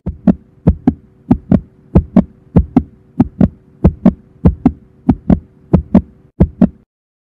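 Heartbeat sound effect: paired lub-dub thumps at about a hundred beats a minute over a faint steady hum, cutting off suddenly near the end.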